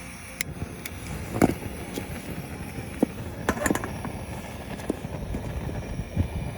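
Scattered knocks and clicks at an uneven pace, a few of them sharp, over a steady low rumble.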